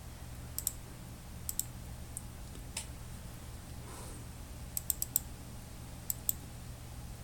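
Sharp computer clicks from the mouse or keys, about a dozen, mostly in quick pairs, with a short cluster about five seconds in. A steady low hum lies underneath.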